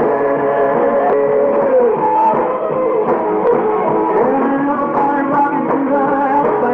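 A live rock and roll band playing, recorded at a concert.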